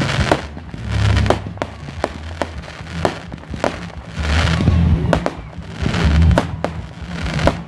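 Fireworks display going off: a rapid series of sharp bangs, about two a second, mixed with crackling bursts, over music.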